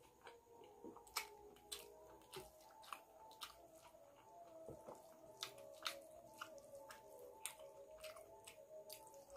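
Close-up wet chewing and lip-smacking of a person eating curry and rice by hand: a quiet, irregular run of sharp moist clicks, with fingers squishing rice on a steel plate.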